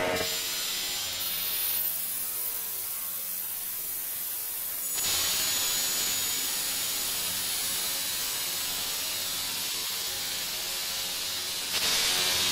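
Electronic music: a hissing noise texture with faint steady high tones. The upper hiss thins out about two seconds in, swells back about five seconds in, and brightens near the end.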